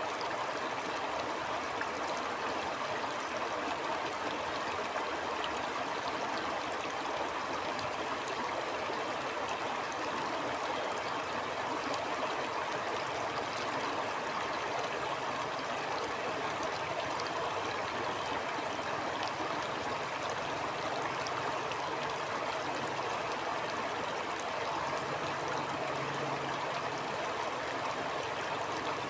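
Stream water flowing in a steady, even rush, with no breaks or changes.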